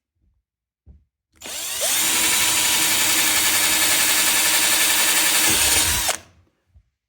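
Power drill boring a hole for a knob through a kitchen cabinet door: it spins up over about half a second, runs steadily for about four seconds, then stops. A small knock comes just before it starts.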